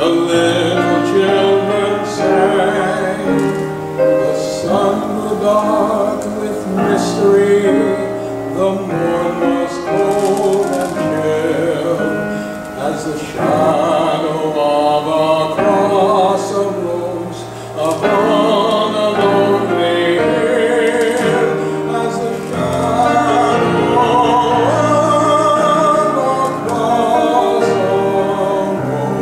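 Music: a sung hymn, the voice held in long wavering notes over instrumental accompaniment.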